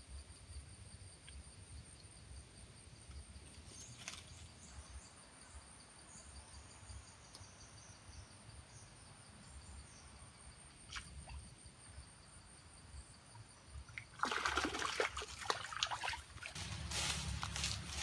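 A steady high insect drone with a few brief chirps, then about 14 s in a sudden loud splashing and sloshing of water at the pond's edge, followed by rustling and crunching of dry leaves underfoot near the end.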